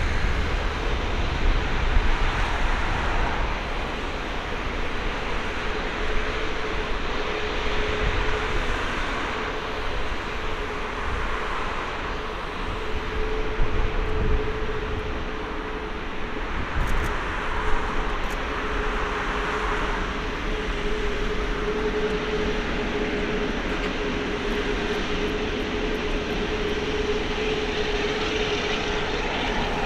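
Airbus A380's Rolls-Royce Trent 900 jet engines running: a steady whine over a broad rushing noise.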